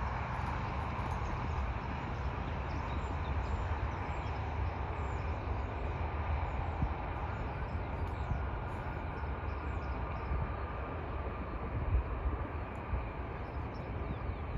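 Distant Boeing C-17 Globemaster III taxiing, its four turbofan engines running at low power: a steady rumble and hiss whose mid-pitched whine fades over the first couple of seconds as the aircraft turns away. Faint bird chirps sound above it.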